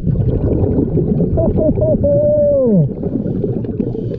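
Churning underwater noise heard underwater, with a diver's muffled, distorted voice making a few short sounds and then one long call whose pitch falls away, a little before halfway.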